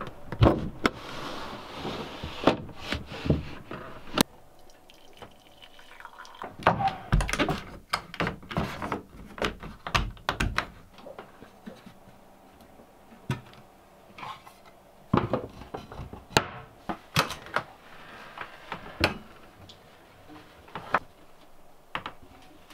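Water splashing and trickling, with many irregular clicks and knocks.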